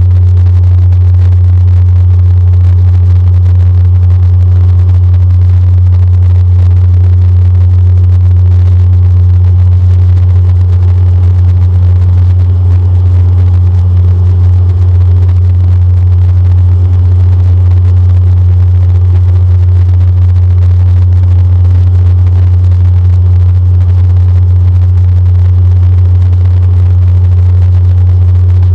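Cabin drone of a Bombardier Dash 8 Q400 turboprop in flight, heard from a window seat beside its six-blade propeller: a steady, very loud low hum with a fainter higher overtone that slowly swells and fades.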